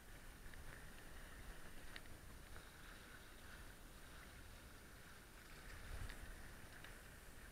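Faint water rushing and slapping against the hulls of a small sailing catamaran under way on choppy water. There is a low rumble that swells about six seconds in, a few small clicks, and a thin steady high tone.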